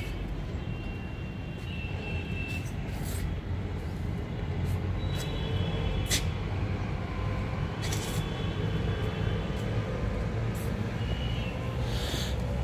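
Steady low rumble of road traffic, swelling a little in the middle as a vehicle goes by. Short high-pitched chirps come through now and then, with a few light clicks.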